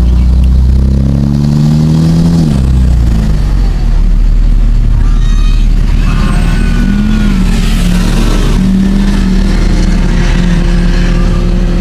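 Diesel pickup truck engine heard from inside the cab, revving up for about two seconds as it accelerates, then dropping back. It then runs more steadily, with a brief rise and fall in pitch partway through.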